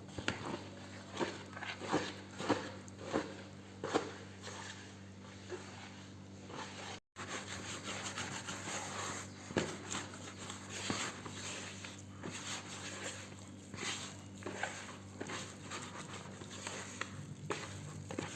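Soft, sticky bread dough being mixed and worked in a bowl after flour is added. A series of sharp strokes about every half second gives way to denser, continuous mixing noise. A faint steady hum sits underneath.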